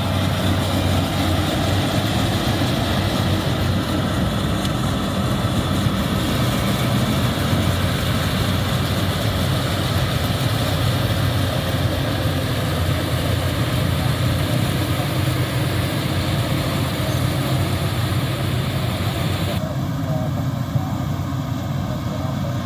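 Yanmar YH850 rice combine harvester running, its diesel engine and machinery making a steady low hum under a continuous hiss. Near the end the hiss drops away abruptly, leaving the engine hum.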